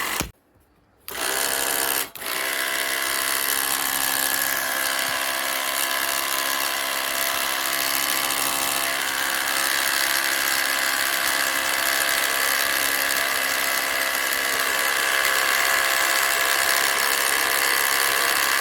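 Homemade reel lawn mower running with a steady mechanical whir and whine, its cutting blades rubbing and making noise because their mating adjustment is not yet complete. The sound cuts out for under a second near the start and dips briefly again about two seconds in.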